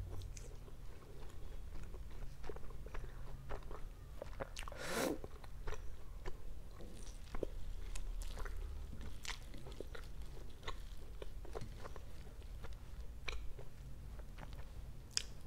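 Close-up wet chewing and mouth smacks of a soft, saffron-milk-soaked Indian sweet being eaten, with small clicks of a metal spoon in a foil tray. There is a louder wet mouth sound about five seconds in.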